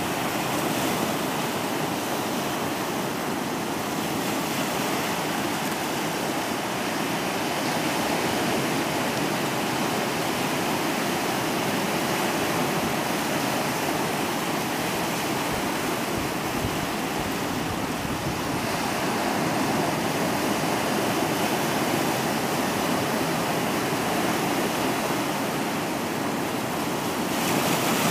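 Ocean surf at high tide, waves breaking and foaming in over a flat rock shore in a steady rush of water that swells a little louder near the end.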